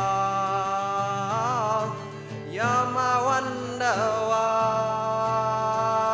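A man singing a few long held notes over an acoustic guitar.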